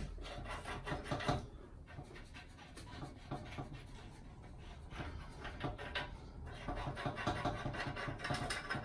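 Irregular metal clicks and light knocks of a spanner and the pipe union fittings as a diaphragm gas meter is fitted to the pipework, over a soft breathy noise.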